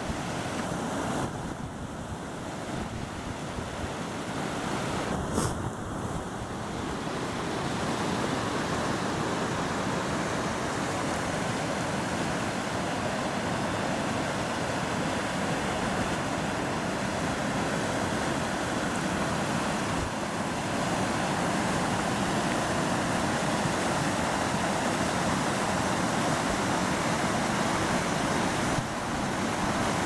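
A rocky river's water rushing over small falls and ledges into foamy pools: a steady rushing noise that grows a little louder over the first several seconds, with one brief click about five seconds in.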